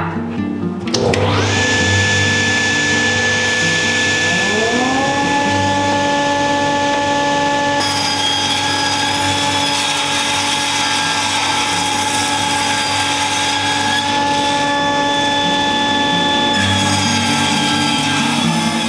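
Powermatic cabinet table saw starting up, its whine rising in pitch for a few seconds and then running steadily. From about eight seconds in, the blade rips through a board for several seconds, adding a hissing cutting noise. Background music comes back near the end.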